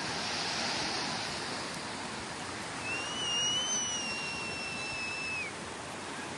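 Sea surf washing steadily onto a beach, with a wave breaking in the first second or so. From about three seconds in, a thin high whistle is held for about two and a half seconds and drops slightly as it ends.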